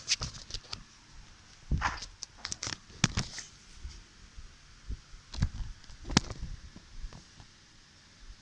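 Irregular handling noises of small objects: sharp clicks, taps and short rustles in uneven clusters, the loudest click about six seconds in.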